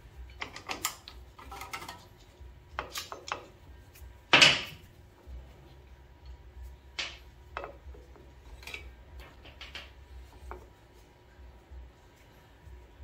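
Metal clinks and clatter of drum brake parts as the return springs are worked off a rear drum brake with a spring tool, with one loud metallic clank about four seconds in.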